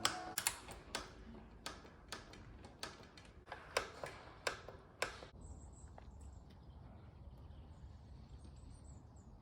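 A dozen or so sharp, irregular clicks over about five seconds. After them comes a faint steady low hum with faint high chirps.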